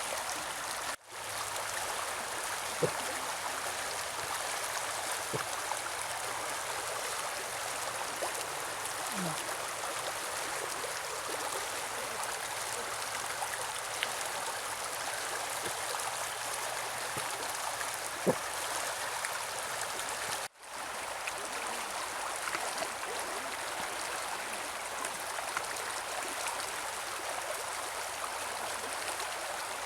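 Mountain river running: a steady, even rush of water with a few small plops, dropping out briefly twice.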